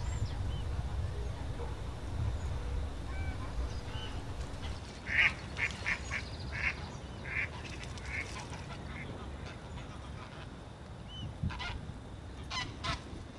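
Flying waterfowl calling: a quick run of about eight short honking calls about five seconds in, then a few more near the end. A low rumble underlies the first few seconds and then dies away.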